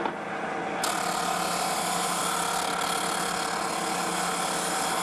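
Drum sander running with a steady motor hum; about a second in, a steady grinding hiss joins it as the spinning sanding drum takes material off the corner of an oak board, rounding it over.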